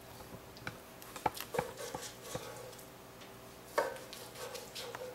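Chef's knife cutting raw boneless chicken thighs into cubes on a plastic cutting board, the blade tapping the board in irregular knocks, the loudest nearly four seconds in.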